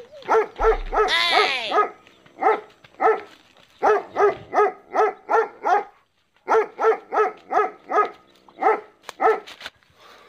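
A dog barking over and over in quick runs of short barks, a few wavering, yelping cries among them at first, with a brief pause about six seconds in.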